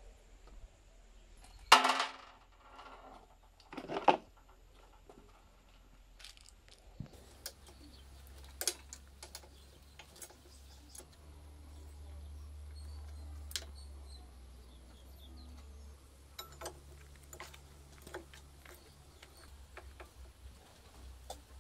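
Clatter and clicks of parts being handled while an old motorcycle is taken apart: two loud knocks about two and four seconds in, then lighter scattered clicks of metal and plastic parts over a faint low hum.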